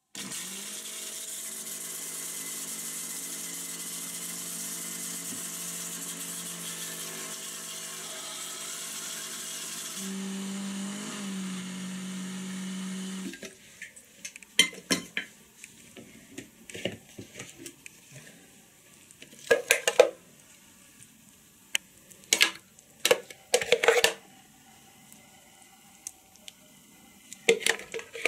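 Philips countertop blender motor running steadily for about thirteen seconds while it emulsifies egg and vegetable oil into mayonnaise; its tone changes about ten seconds in, and then the motor cuts off. After that a metal spoon clinks and scrapes against the blender jug and a ceramic bowl several times.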